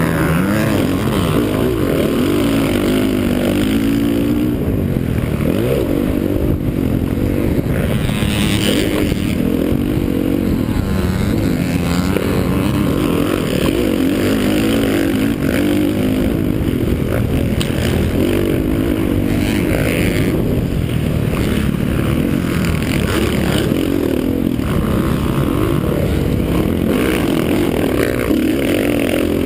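Motocross dirt bike engine revving up and down as it is ridden hard, heard through a helmet-mounted GoPro.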